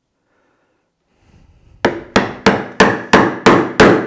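A wood chisel struck on its handle about three times a second, chopping a mortise in a softwood 2x4. The blows start about two seconds in, seven of them in a steady run, each one sharp and short.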